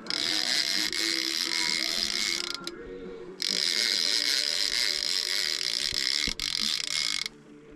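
Fishing reel drag buzzing as a hooked shark pulls line off the reel, in two long runs: about two and a half seconds, a short pause, then about four seconds more that cuts off suddenly.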